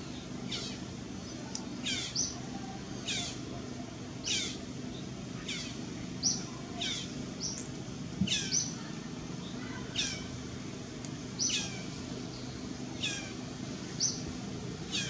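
An animal's short, high-pitched call repeated about once a second, each call sliding quickly down in pitch.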